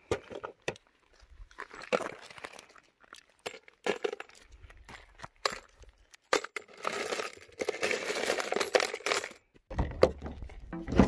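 Spent brass .223 rifle casings clicking as they are picked up off gravel. About seven seconds in, a handful is dropped into an ammo can full of brass, giving a jingling metallic rattle of about two seconds. Near the end comes a low rumble and a few knocks of handling noise.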